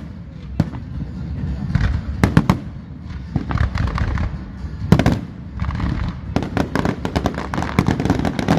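Aerial fireworks going off: a continuous run of sharp bangs and crackles. The loudest bursts come about two and a half and five seconds in, and the reports come thick and fast near the end.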